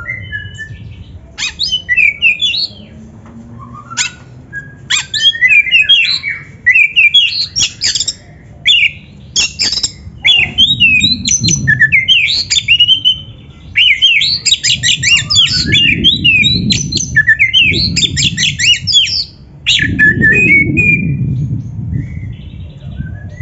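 Oriental magpie-robin (kacer) singing a fast, varied song of whistled notes and harsh chattering runs, in phrases broken by short pauses, over a low background rumble.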